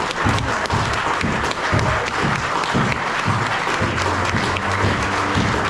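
Crowd applauding, with music playing under it to a steady beat.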